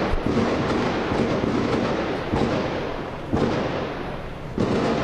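Heavy gunfire in dense, rapid bursts that echo, with louder reports about three and a half and four and a half seconds in.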